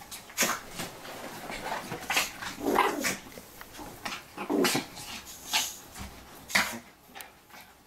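Dog giving several short barks and growls in separate bursts while play-fighting with a ferret.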